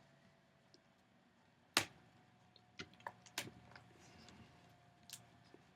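Sparse light clicks and taps of tweezers and fingers working on a laptop's LCD panel while peeling up the tape over its display cable: one sharp click about two seconds in, a quick cluster of smaller ones a second later, and another near the end.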